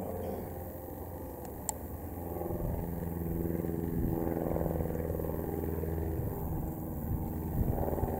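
Piston engines of several vintage biplanes flying a display pass, a droning whose pitch shifts as they go by. It grows louder from about two and a half seconds in. A single sharp crack comes about two seconds in.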